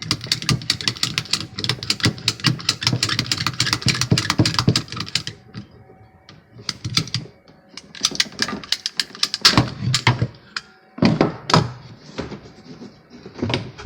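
PVC pipe cutter clicking rapidly as it is squeezed through PEX tubing for about five seconds, then a few scattered clicks and knocks as the cutter and pipe are handled.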